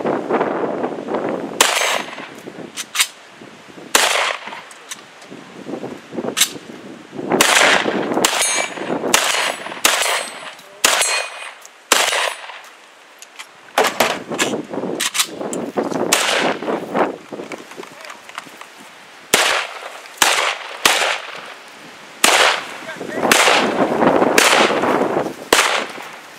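A long string of gunshots, singles and quick pairs roughly half a second to a second apart, with short pauses now and then, and steel targets clanging when hit.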